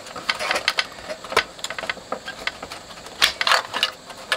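Irregular plastic clicks and rattling as wires and a plug connector are worked loose by hand inside a Telefunken CR100 radio cassette recorder's chassis, with a louder burst of scraping and rustling about three seconds in.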